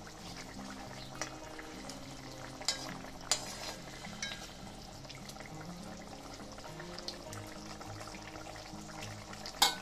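Fish curry simmering with a steady sizzle in an iron kadai as a spatula stirs it, with a few sharp clinks of the spatula against the pan; the loudest clink comes near the end.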